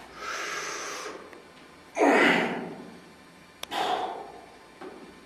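A man breathing hard with effort while rowing a heavy 55 kg dumbbell one-armed. A drawn-in breath comes first, then a forceful exhale about two seconds in, the loudest sound, and another breath near four seconds, just after a short click.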